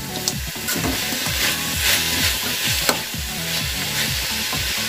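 Chicken and shredded vegetables sizzling in a hot aluminium kadai on a high gas flame while being stirred and tossed, with the utensil now and then clicking against the pan.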